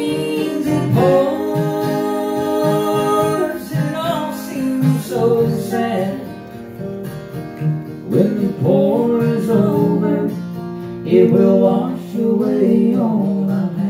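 Acoustic guitar strumming with a mandolin playing along, a country tune played live.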